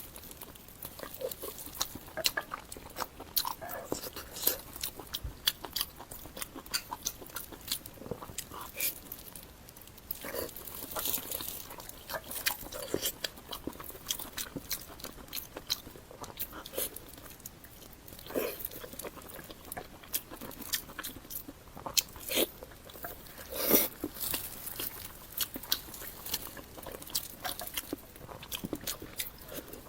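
Close-miked eating: biting into and chewing Northeastern Chinese blood sausage, with a steady run of wet mouth clicks and smacks and a few louder bites.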